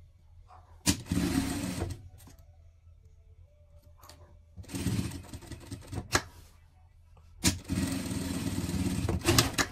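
Industrial straight-stitch sewing machine stitching fabric in three short runs of a second or two each, with brief pauses between. Each run starts with a sharp click.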